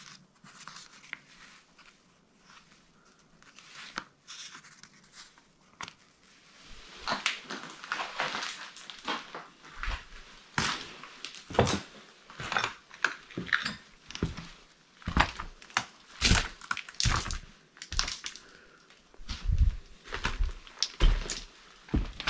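Footsteps crunching and scraping over debris of plaster, paper and broken glass on a floor, an irregular run of crunches that starts about seven seconds in. Before that it is quiet, with a few faint clicks.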